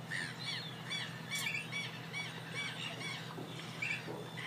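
Duckling peeping: a run of short high cheeps, two or three a second, over a faint steady low hum.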